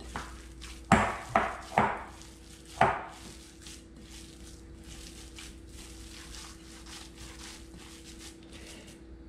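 Hands mixing chopped fish and herbs in a ceramic bowl: four sharp knocks in the first three seconds, then quiet, continuous squishing and rustling.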